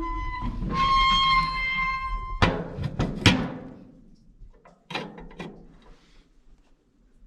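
Metal squeal lasting about two and a half seconds, then three sharp clanks in quick succession and two lighter knocks a little later, from working the door and loading of an old wood stove.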